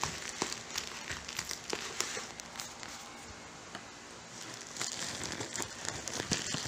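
Plastic courier pouch crinkling and crackling as it is handled and worked open, with many short sharp crackles; it eases off for a second or so in the middle, then picks up again.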